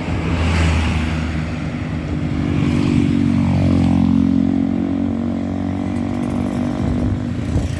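Intercity bus's diesel engine running as the bus drives past close by, growing loudest about three to four seconds in and then easing off.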